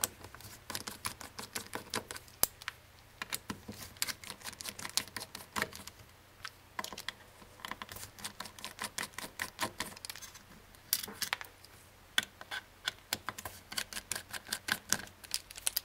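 Rapid, irregular small metal clicks of a precision screwdriver working the screws that hold the circuit board on a WD 3.5-inch hard drive, coming in runs with short pauses. The board is being taken off to be replaced.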